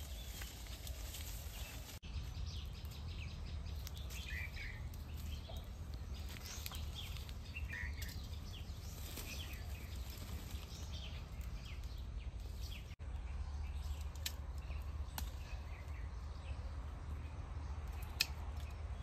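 Outdoor ambience: small birds chirping now and then over a low, steady rumble, with a single sharp click near the end.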